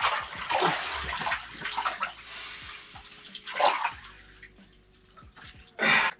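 Water sloshing and splashing in an ice-fishing hole as a northern pike thrashes and is pulled out by hand, in several bursts, the last short and loud near the end.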